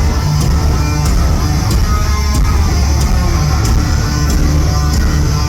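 Live hard rock band playing loud, with heavy bass and distorted guitar over a steady drum beat.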